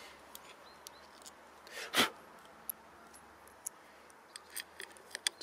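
Handling of metal workshop parts: scattered small clicks and taps, with one louder short knock about two seconds in.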